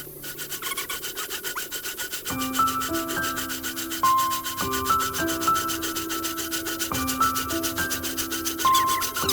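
Quick rasping strokes of hand work with the old two-man saw, about four a second and evenly paced. Background music with a simple melody comes in about two seconds in.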